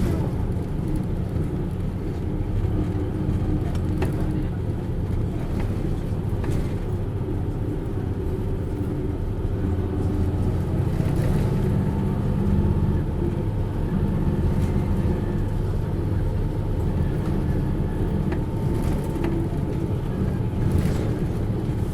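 Hino U-HT2MLAA (Blue Ribbon) city bus running under way: a steady drone of engine and drivetrain, with a faint high whine coming and going. The bus is in poor condition and makes strong abnormal noise while running.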